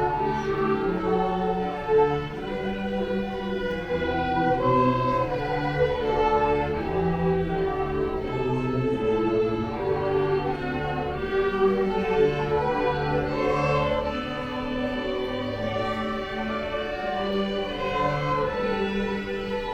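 Slow orchestral music with bowed strings, held notes changing about once a second.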